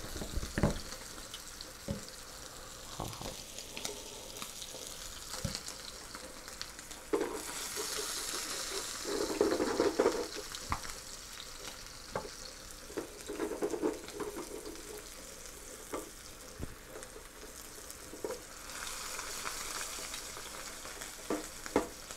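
A sous vide ribeye searing in a hot skillet, sizzling steadily in its fat to build a crust. The sizzle swells louder twice for a few seconds, and a few light clicks and knocks sound here and there.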